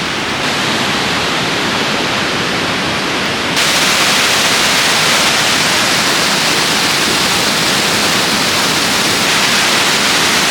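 Shifen Waterfall's falling water: a loud, steady rushing. It jumps abruptly louder and brighter about three and a half seconds in.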